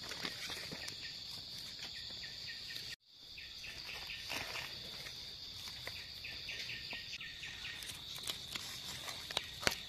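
Steady, high-pitched chorus of insects, with a pulsing chirp beneath it. It breaks off for an instant about three seconds in. Near the end come a few sharp clicks and rustles of hands working in leaf litter and soil.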